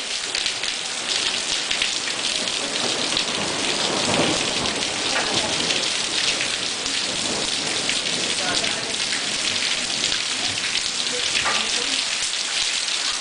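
Steady heavy rain falling and pattering on hard surfaces. A low rumble swells briefly about four seconds in.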